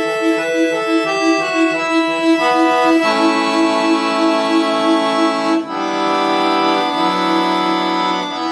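Solo piano accordion playing: a quickly repeated low note under a moving melody line, then about three seconds in, full sustained chords. The sound breaks off briefly a little before six seconds in, and the chords change again near the end.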